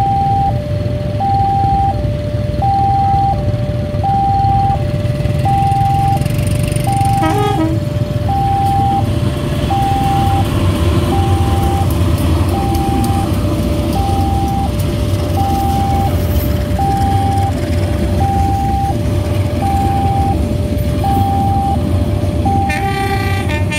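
A railway level crossing's electronic warning siren (VIALIS speaker) sounds a steady two-tone high-low alternation, about one high-low cycle every second and a half, signalling an approaching train. Under it runs the low rumble of a passenger train passing, and a horn sounds briefly about seven seconds in and again near the end.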